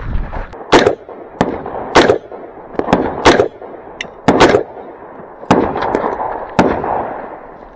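AR-15 rifle fired semi-automatically from close by, about ten sharp shots at an uneven pace, sometimes two in quick succession, each with a trailing echo.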